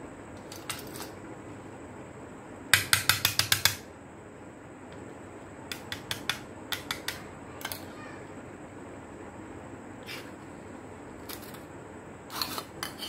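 Sharp clicks and light clatter of an LED lamp and small parts being handled on a workbench. A quick run of about eight clicks comes a few seconds in, scattered clicks follow, and another cluster comes near the end.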